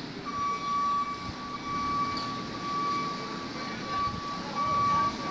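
Heavy construction machine running, with a high electronic beep pulsing about once a second over the engine rumble: its reversing alarm.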